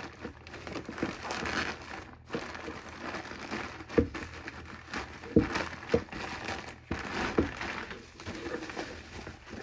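Packing material crinkling and rustling as a shipping package is opened by hand, with a few sharp knocks of handling along the way.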